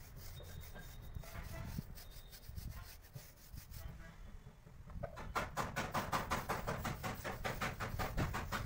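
Paintbrush rubbing black paint onto a truck tyre's rubber sidewall. The strokes turn quick and even, about seven a second, and grow louder about halfway through.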